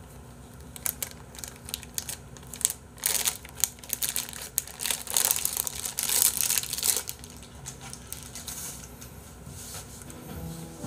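Plastic water bottle being crumpled and twisted in the hands: a run of crackles and clicks, loudest in the middle, that dies away about seven seconds in.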